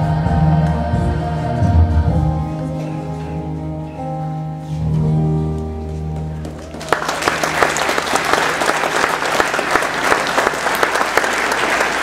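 Children's choir singing the end of a song with accompaniment, closing on a held chord. About seven seconds in, the audience suddenly starts applauding, and the clapping goes on.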